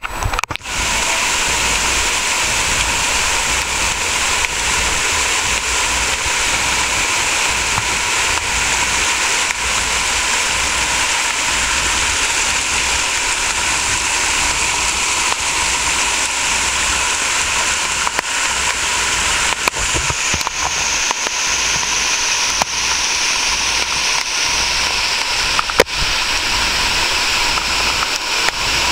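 Steady rushing of water from a muddy, rain-swollen stream in flood, with a couple of brief knocks in the second half.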